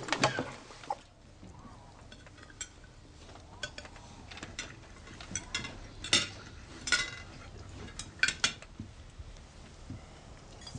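Knives and forks clinking and scraping on dinner plates as people eat, in scattered light clinks, a few sharper ones clustered past the middle.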